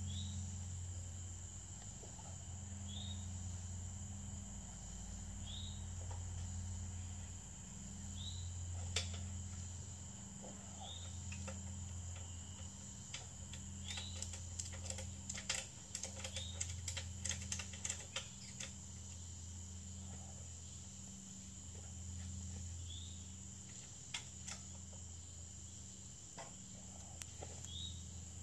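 Steady chorus of crickets and other insects, with a low hum that swells and fades every couple of seconds and a short chirp repeating about every three seconds. About halfway through comes a run of sharp metallic clicks and rattles from the steel ladder tree stand being worked on at its platform.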